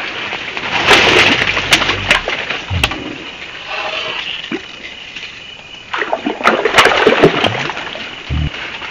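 A hooked fish splashing and thrashing at the water surface on a fishing line, in two bouts: one about a second in and a longer one around six to seven seconds in.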